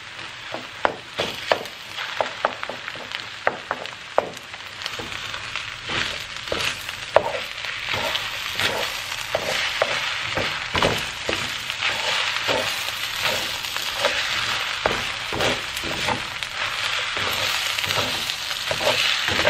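Fried rice with egg sizzling in a wok while a wooden spatula stirs and scrapes it, with many short scraping strokes. The sizzle grows louder and steadier about halfway through.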